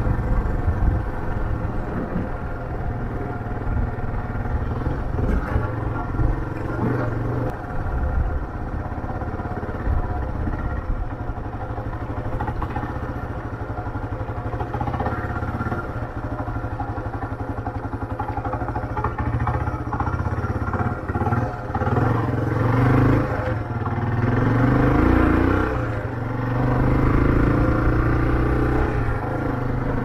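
Motorcycle engine running while riding, with low wind rumble. The engine note rises and falls in the last third as the revs change.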